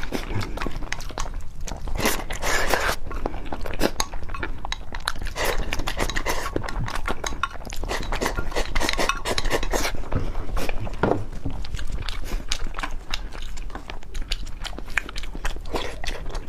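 Close-up eating sounds: chewing and eating from a bowl held to the mouth, with chopsticks clicking against the bowl and pot in many short clicks.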